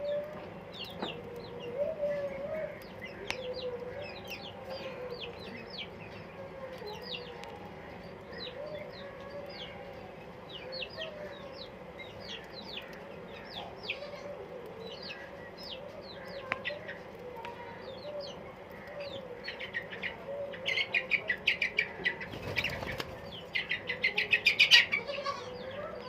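Birds calling: many short, high, downward-sliding chirps throughout over a low wavering warble, with a loud, fast run of chattering calls near the end.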